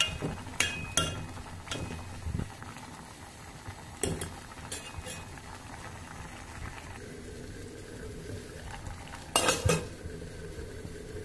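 A steel spoon stirring vegetable pieces in a metal cooking pot, clinking against the pot several times in the first few seconds and again about four seconds in. Near the end there is a louder double clatter as a steel lid is set on the pot.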